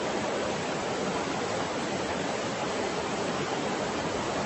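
Muddy flash-flood torrent rushing across open ground, a steady noise of fast-flowing water.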